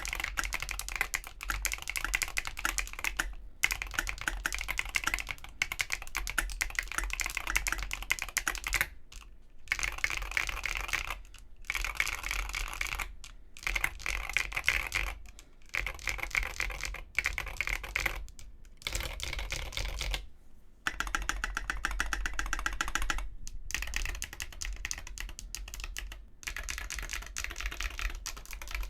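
Typing on a custom AARU TKL mechanical keyboard with KNC Green Jacket tactile switches, a 4 mm brass plate and tall SA-profile ABS keycaps. Rapid keystrokes come in runs of a few seconds, separated by short pauses.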